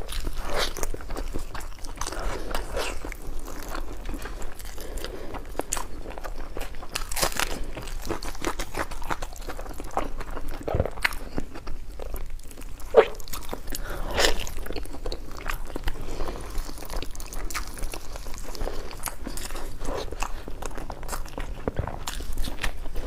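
A person biting and chewing food close to the microphone, with irregular crunching bites and one sharper crunch about halfway through.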